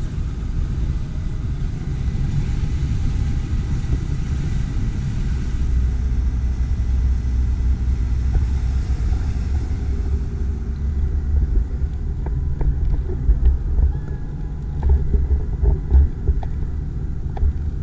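Jeep Wrangler JL Rubicon crawling over trail rock, its engine and drivetrain making a low, steady rumble. A few short knocks and clunks come in the last third.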